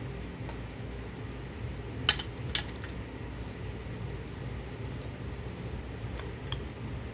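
Sharp clicks and taps of small hard parts and tools being handled while a hair dryer is taken apart. There are two pairs of clicks, the first about two seconds in and the louder, the second near the end, over a steady low hum.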